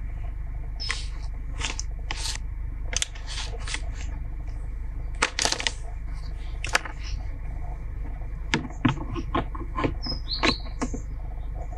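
Scattered scrapes, clicks and light knocks from a plastic fender flare being handled and worked on cardboard, over a steady low hum. A brief high squeak comes near the end.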